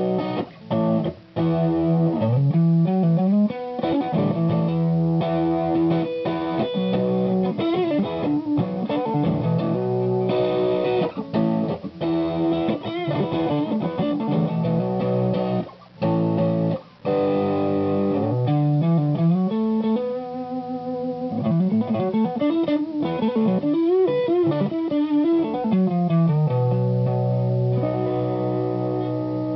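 Electric guitar, a Fender '66 Custom Shop Stratocaster, played through an Ibanez TS808HW hand-wired Tube Screamer overdrive pedal into an EL34 Class A Matchless tube amp: an overdriven riff with sliding notes and bends. The phrase starts over about halfway through.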